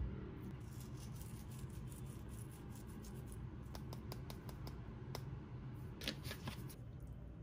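Salt and pepper being sprinkled onto raw sliced beef on a plate: a quick run of small crisp clicks for about three seconds, a few scattered clicks, then another short burst near the end. A soft thump sounds right at the start.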